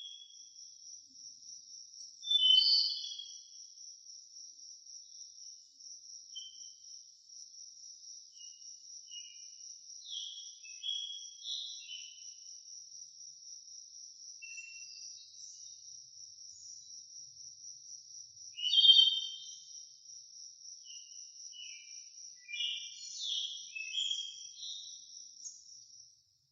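A steady, high, rapidly pulsing insect trill runs throughout, with scattered short bird chirps over it, loudest about two and a half seconds in and again near nineteen seconds.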